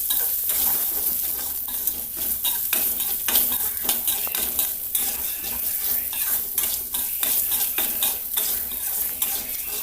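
A tempering of onion, curry leaves, dried red chillies, mustard seeds and chana dal sizzling in hot oil in a pan, with a spoon stirring and scraping against the pan, giving frequent sharp clicks over the steady sizzle. Turmeric and asafoetida have just gone in and are being sautéed.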